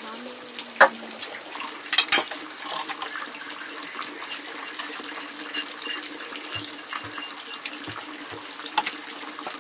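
Water running steadily, with a few sharp knocks.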